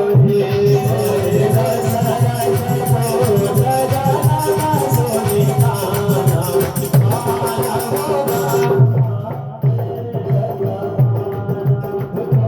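Indian devotional music: regular drum beats over a steady held note and a wandering melody line, with a shaker-like rattle that stops about three-quarters of the way through.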